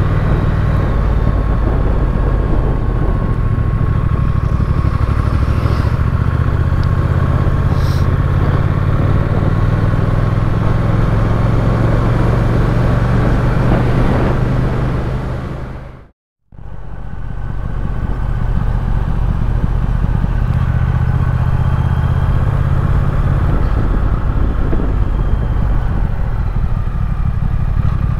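Triumph Speed Twin's parallel-twin engine running steadily under way, with wind and road noise. The sound fades out to silence for a moment a little past the middle, then comes back.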